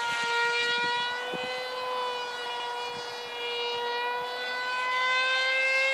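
Zagi RC flying wing's motor and propeller running in flight: a steady high-pitched whine whose pitch drifts slightly, rising a little near the end.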